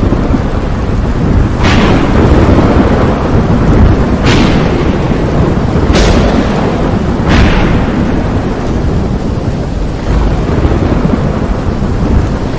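Thunderstorm sound effect: a steady, heavy storm rumble broken by four sharp cracks of thunder over the first eight seconds, each trailing off into a rolling rumble.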